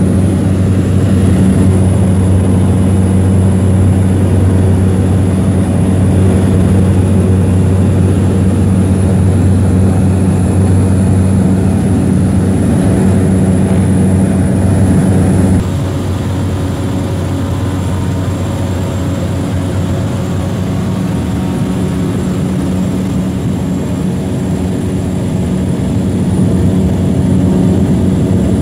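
Steady drone of a small propeller seaplane's engine heard inside the cabin, with a strong low hum. About halfway through the sound abruptly becomes a little quieter and thinner.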